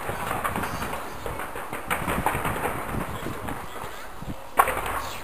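Fireworks going off from the Taipei 101 tower: a stream of pops and crackles, with one sharp, loud bang near the end, against the murmur of a watching crowd.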